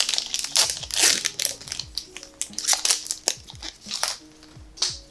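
Foil wrapper of a Pokémon booster pack crinkling and crackling in the hands as it is opened, in a quick run of sharp crackles that thins out near the end. Background music plays underneath.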